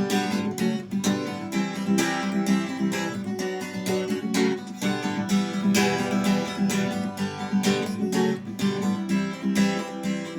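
Acoustic guitar strummed in a steady rhythm, playing the instrumental break between sung verses of a song.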